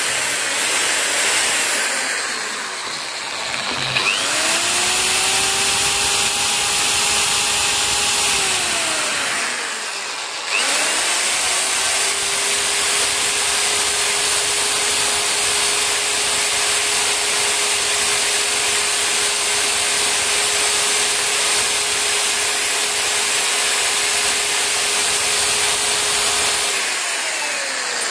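Electric drill spinning a wire brush against a motorcycle engine's piston crown, scrubbing off carbon deposits. The drill winds down about two seconds in, whines back up at about four seconds, stops just before ten, then starts again and runs steadily until it winds down near the end.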